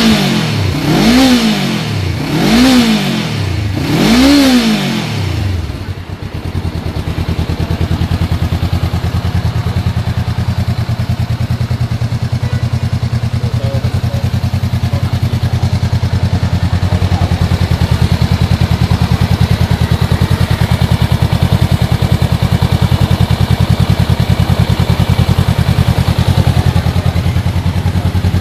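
Honda CBR500R's parallel-twin engine revved three times, each rev climbing and dropping back within about a second and a half, then settling about six seconds in to a steady idle.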